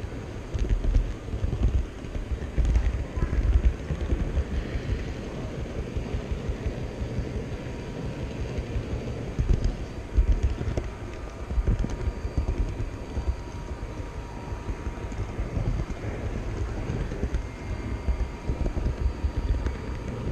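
Model train rolling along the track, heard from a camera riding on the train: a steady low rumble with rapid clicking and clatter of wheels on rails and over turnouts, louder in bursts a few times. A murmur of hall chatter lies underneath.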